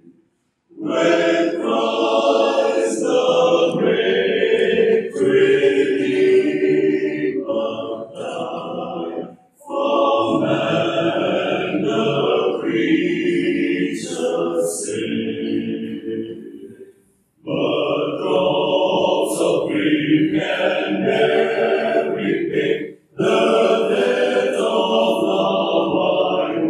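Men's choir singing a hymn a cappella, in four long phrases with short breaks between them.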